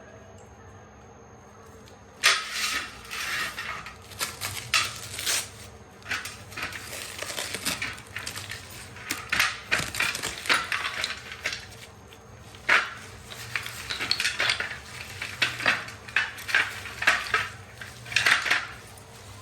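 Irregular clattering and crisp rustling of objects being handled, starting about two seconds in, with many sharp clicks and knocks.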